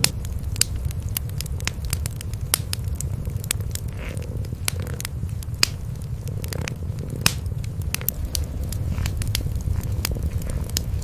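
Cats purring in a steady low rumble, with a wood fire in a fireplace crackling over it in sharp, irregular pops.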